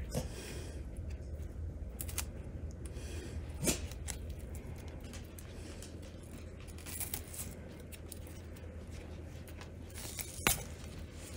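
Dry onion skin being picked and peeled off by fingernails: faint papery crackles with a few sharper clicks scattered through, over a low steady hum.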